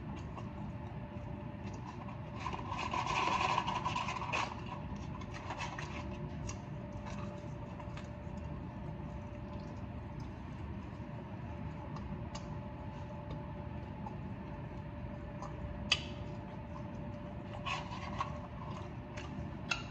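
Eating and handling of paper fast-food packaging over a steady low hum. There is a louder rustle about three seconds in, and a few sharp clicks and crinkles near the end as fries are pulled from a paper fry carton.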